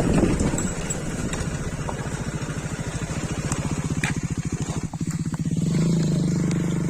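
Hero XPulse 200's single-cylinder engine putting along at low revs with a fast, even beat, then running steadier and a little louder about six seconds in.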